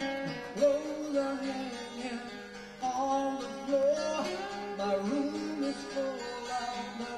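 Two acoustic guitars playing live: a lead guitar picks a melodic line with bent notes over chords on the second guitar.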